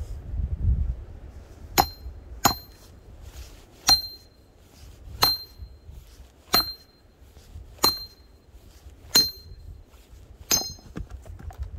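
Eight sharp metallic hammer strikes, roughly one every second and a bit, each ringing briefly: metal striking metal while splitting firewood logs.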